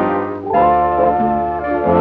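Background music of sustained chords, with the chord changing about half a second in.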